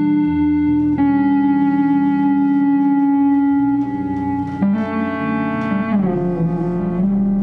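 Solo bass playing long, sustained notes layered over lower held tones, shifting to new pitches about a second in, again past the middle, and near the end.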